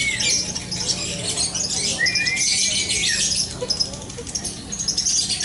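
Lovebirds chattering in a dense, continuous high-pitched trill, the long 'ngekek' song kept up in contest. A couple of clear whistled notes, each about a second long, come in around two to three seconds in.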